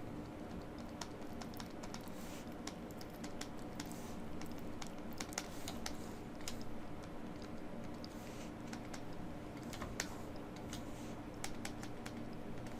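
Scattered, irregular clicks of a computer keyboard and mouse being worked, over a faint steady low hum.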